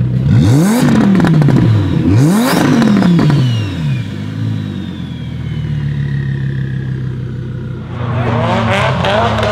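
Lamborghini Huracán's V10 revved twice while stationary, each rev sweeping up sharply and dropping back, then settling into a steady idle. Near the end another engine takes over, revving with crackles.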